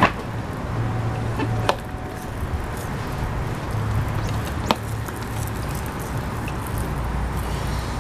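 Water being sprayed onto a car tire from a hand sprayer: a few sharp clicks over a steady low rumble.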